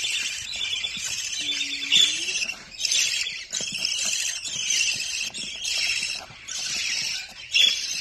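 Budgerigar chicks in the nest box giving raspy, hissing begging calls, one after another with only short breaks, each call about half a second to a second long.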